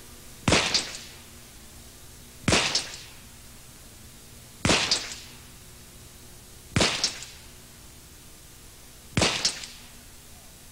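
Five pistol shots from a semi-automatic handgun, fired slowly and deliberately about two seconds apart, each followed by a short echo.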